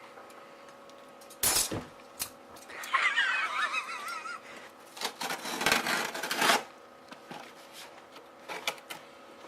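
Gift packaging being handled and opened: a sharp rustle about a second and a half in, a wavering squeal around three to four seconds in, then a longer rustle lasting about a second and a half.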